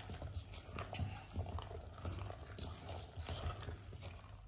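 Wire whisk stirring a thick semolina and mango cake batter in a steel bowl: soft, wet, irregular strokes.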